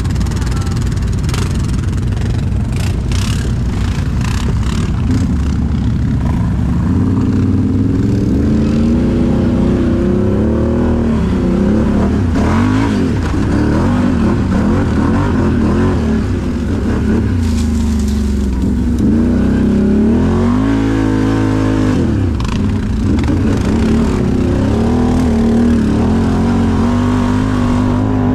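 Can-Am Outlander XMR 1000R ATV's V-twin engine running under a rider, steady and low for several seconds, then revving up and down repeatedly as the throttle is worked. A few sharp clicks come in the first few seconds.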